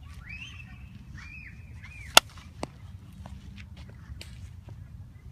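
A softball bat hitting a pitched softball: one sharp crack about two seconds in, followed shortly by a fainter knock.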